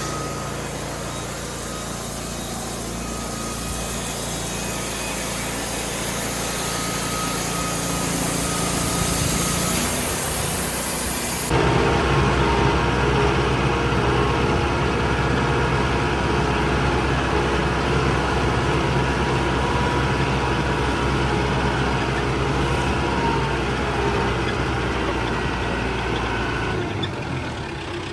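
Engine running steadily, with a loud hiss over it for the first ten seconds or so. The hiss cuts off abruptly, after which a deeper engine note is louder.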